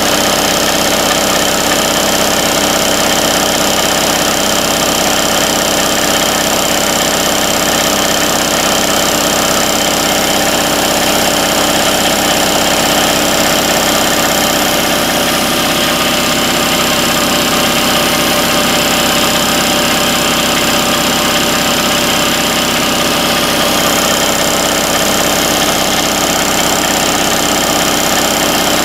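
1993 Craftsman 30-gallon, 5 HP, 240 V air compressor running steadily and loudly, with a high whine over the pump's din.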